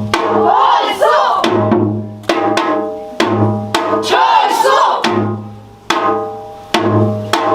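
Music with drums: sharp percussion hits with ringing pitched notes over a deep bass pulse, and a wavering melody line.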